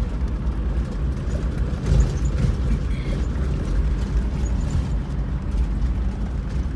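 Inside a vehicle's cabin driving on a rough dirt road: a steady low rumble of engine and tyres, with a louder bump about two seconds in.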